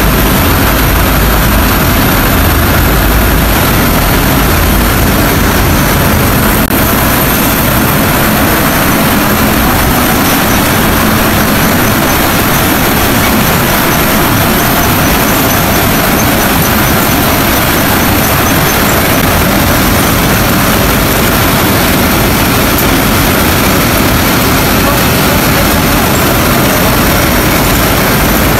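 Electric-motor-driven cotton-opening machines running together, a loud, steady, unbroken machinery noise of spinning drums and gears working cotton.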